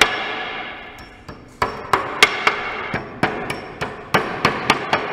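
Claw hammer driving nails through the top row of roof tiles into the batten: about a dozen sharp blows, the louder ones ringing briefly, settling into a steady rhythm of about three strikes a second.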